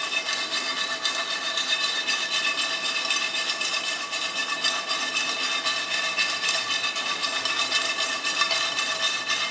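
Cubes of idli sizzling and crackling in sesame oil in a nonstick frying pan while a spatula stirs and tosses them through the idli podi. A steady whine runs underneath.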